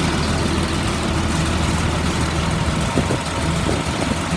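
A 2004 Blue Bird 72-passenger school bus engine idling steadily.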